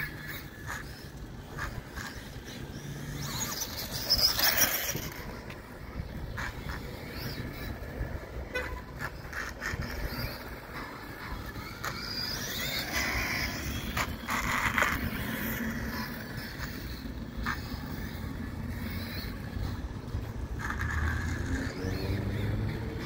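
Losi ProMoto-MX electric RC motorcycle running on asphalt, its motor whining and gliding up and down in pitch with the throttle. It is loudest as it passes close, about four seconds in and again around thirteen to fifteen seconds.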